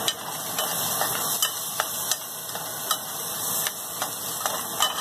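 Chopped onions sizzling in oil in a frying pan on medium heat as a metal spoon stirs them, with sharp clicks and scrapes of the spoon against the pan every second or so.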